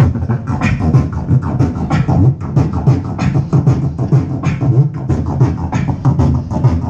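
Human beatboxing into a handheld microphone, played through a small portable loudspeaker: a fast, unbroken beat of sharp clicks and hits over a low hummed bass.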